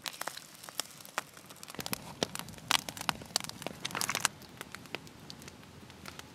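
Campfire crackling and popping, with oysters cooking in a frying pan set on its coals. The sharp pops come thickest about two to four seconds in, then thin out.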